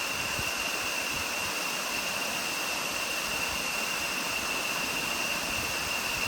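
Small waterfall splashing onto rock, a steady even rush of water, with a thin, steady high-pitched tone running under it.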